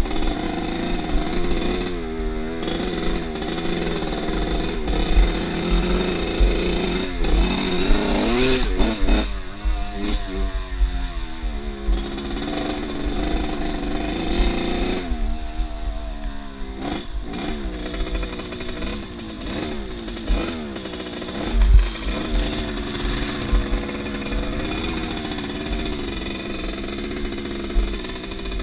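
Off-road motorcycle engine running under load, its pitch rising and falling over and over as the throttle is opened and closed.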